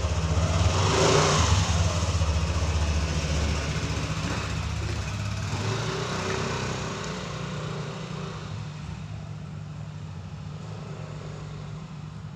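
Yamaha scooter's engine running as the scooter pulls away and rides off, fading steadily into the distance.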